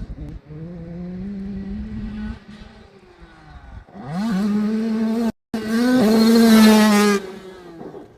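Human flatulence: two long, pitched farts, the second louder and longer than the first, with a sudden cut to silence partway through it.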